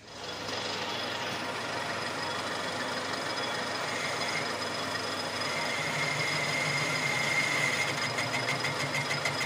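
Metal lathe starting up and running steadily with a cast tractor leveling-box housing spinning in its chuck. About four seconds in, a high whine rises over the machine noise, and near the end it turns into a fast, regular flutter.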